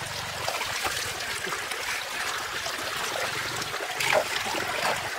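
Shallow muddy water running and trickling through a farm drain, with small splashes as hands and a woven basket work in the water; the splashing is louder about four seconds in.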